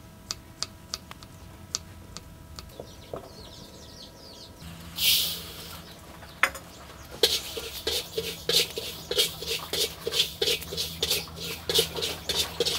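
A few light knife knocks on a wooden chopping block as garlic cloves are sliced. About five seconds in, a short hiss of dry rice grains poured into a black wok, then a flat spatula scraping and stirring the dry rice around the wok, about two strokes a second.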